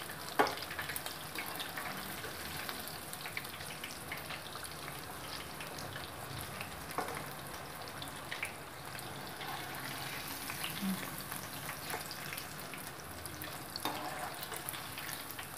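Batter-coated chicken pieces deep-frying in hot oil, a steady sizzle, with a few sharp clicks, the loudest about half a second in.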